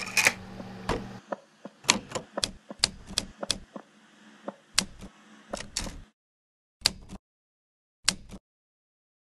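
Typewriter keys striking in an irregular run of sharp clacks, stopping about six seconds in, followed by two more short pairs of strokes.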